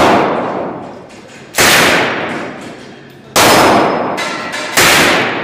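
Three gunshots from a PPSh-41 submachine gun (7.62×25mm Tokarev), spaced about a second and a half apart, each sharp crack followed by a long echoing decay.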